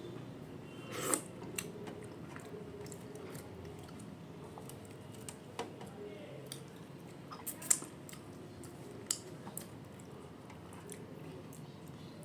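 A person eating a rice-and-dal meal close to the microphone: chewing and wet mouth sounds with scattered sharp clicks, the loudest a brief burst about a second in and sharp clicks near the middle.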